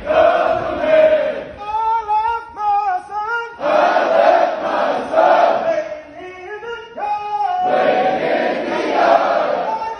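Military marching cadence sung call-and-response: a drill sergeant sings a line alone and a formation of trainees chants it back in unison, with three group answers around two solo calls.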